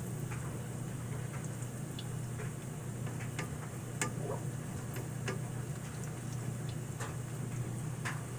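Potato pancakes frying in hot vegetable oil in a skillet: a steady sizzle with scattered pops and crackles, over a steady low hum.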